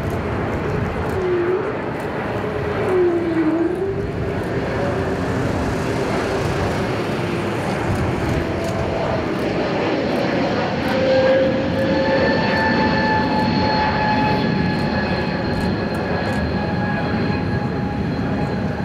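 Embraer E195-E2's two Pratt & Whitney PW1900G geared turbofans as the airliner flies over and climbs away: a steady rushing jet noise, with a whining engine tone that rises about ten seconds in and then holds steady.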